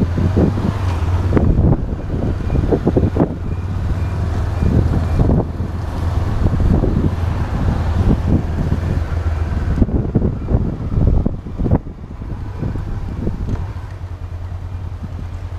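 Honda CBF 500 parallel-twin engine running under way at low town speed, a steady low hum under heavy wind buffeting on the action camera's microphone. The buffeting eases off a little near the end.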